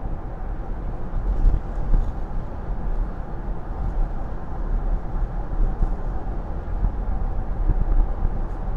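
Steady low road and tyre rumble heard inside the cabin of a Tesla Model Y electric car cruising along a highway.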